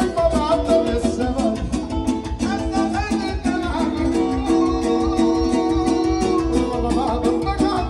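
Live Romani țigănești dance music from a band played loud through PA speakers: a melody of held notes over a steady drum beat.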